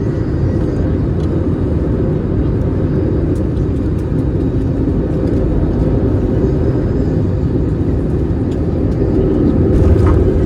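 Steady low rumble of an Airbus A321neo's engines and airflow heard from inside the passenger cabin, swelling slightly near the end.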